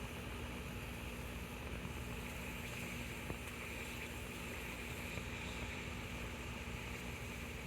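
Steady hiss of an alcohol stove burning under a small titanium pot of heating water, not yet at the boil, over a low rumble.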